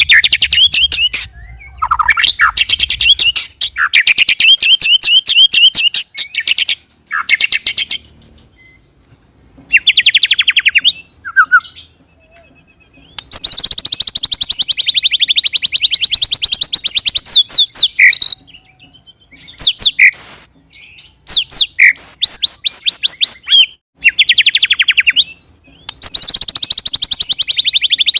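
White-rumped shama (murai batu) singing in fast rolling trills: long runs of rapidly repeated high notes, broken by short whistled phrases and a couple of brief pauses. This is the rolling "roll tembak" song played as a lure to set other shamas singing.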